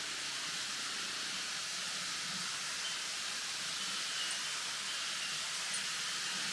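Wind blowing through a bamboo grove, the leaves rustling in a steady, even hiss.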